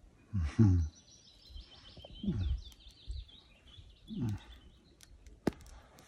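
A songbird sings a long, continuous warbling song. Over it, a person makes three short, low falling "mmm" sounds of enjoyment while eating, and there is one sharp click a little before the end.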